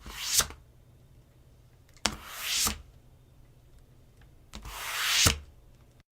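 A sliding sound effect played three times, about two and a half seconds apart. Each begins with a click, swells into a hissing slide that grows louder, and ends on a sharp click or knock, as of something sliding to a stop.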